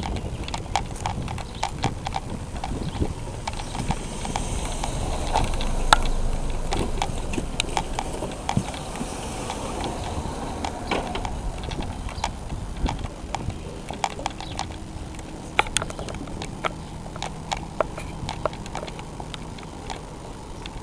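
Footsteps of a person walking at a steady pace, shoes clicking repeatedly on hard ground, over a low steady rumble.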